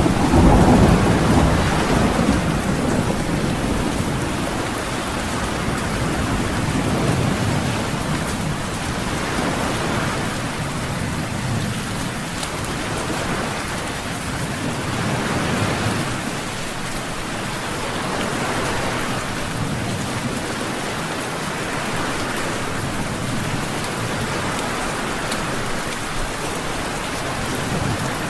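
Steady heavy rain with low rumbling thunder, loudest in the first couple of seconds, and slower swells in the sound every few seconds.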